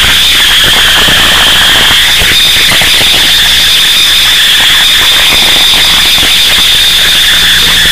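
Harsh noise music: a loud, unbroken wall of distorted static full of crackle, with a steady piercing tone high above it and a low hum underneath.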